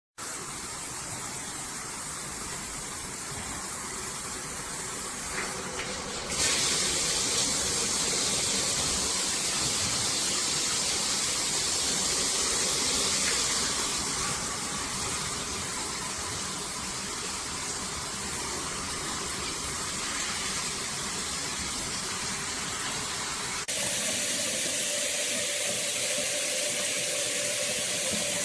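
Water spraying steadily from a shower head, a continuous rush that jumps louder about six seconds in and changes character abruptly near the end.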